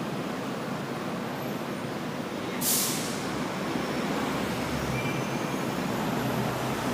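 Steady city road traffic, the low rumble of idling and passing cars and heavy vehicles. About three seconds in, a short, loud hiss of air from a heavy vehicle's air brakes cuts through and quickly fades.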